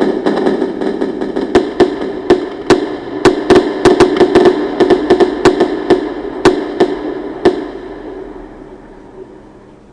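Fireworks going off: rapid sharp bangs over continuous crackling, the bangs stopping after about seven and a half seconds and the crackle dying away.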